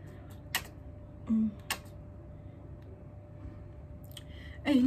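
Two small sharp clicks from a foundation tube being handled, with a short hummed note between them, over quiet room tone; just before the end a woman starts singing.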